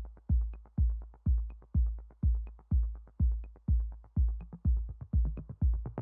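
Electronic background music with a steady drum-machine kick beat, about two beats a second, and faint ticks between the beats.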